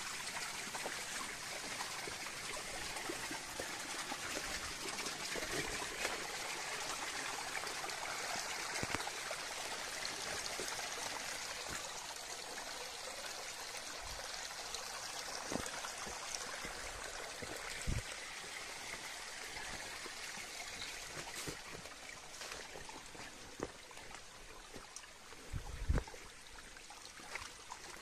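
Running water trickling steadily, growing a little quieter in the second half, with a few soft low knocks.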